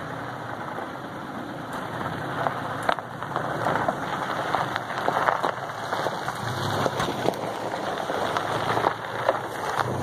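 Toyota Tacoma pickup rolling slowly over loose gravel, its tyres crunching and popping stones in a dense crackle that grows louder from about two seconds in as it nears and passes.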